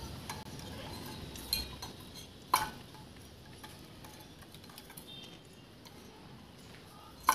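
Metal spoon clinking and scraping in a steel bowl of melted chocolate while a lollipop is coated, with a few sharp clinks: the loudest about two and a half seconds in, another near the end.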